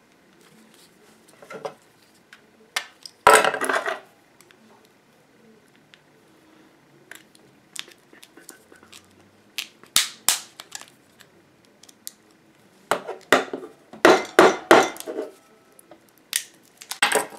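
Thin plastic Easter-egg shell being cracked and snapped off a cast resin egg: sharp plastic cracks and clicks. The longest crackle comes about three seconds in, and a quick run of snaps comes near the end.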